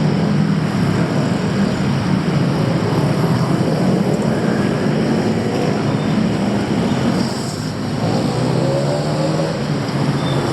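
City street traffic: the steady run of car and motorbike engines passing close by, with one engine speeding up about eight seconds in.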